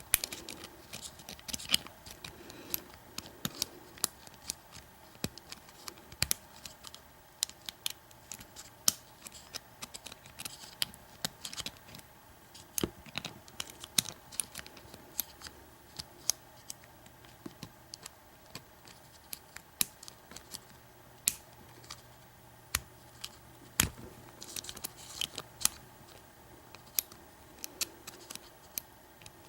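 Lock picking in an American 5200-series padlock: small irregular metallic clicks and light scraping as a pick works the pin stack under heavy tension from a bottom-of-keyway tensioner. There is a short stretch of quick scratching about 25 seconds in.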